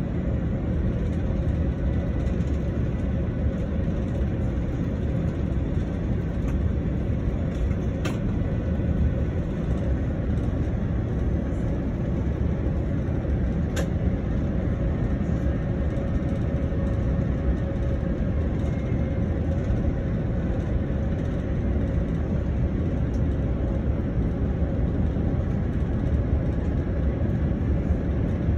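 Steady cabin noise inside a Boeing 777 airliner on final approach: a constant low rumble of airflow and engines with a faint steady hum, and two faint clicks about eight and fourteen seconds in.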